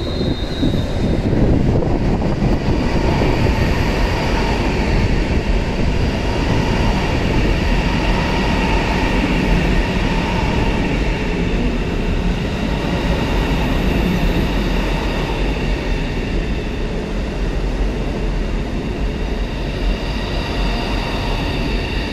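Fuxing CR400AF-family high-speed electric multiple unit passing close by: a steady, loud rolling rumble of wheels on rail with a faint high whine over it.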